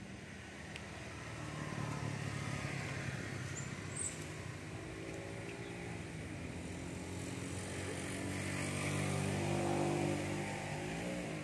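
A motor engine running steadily somewhere off-camera, slowly growing louder to a peak about ten seconds in, its pitch dipping and rising near the end.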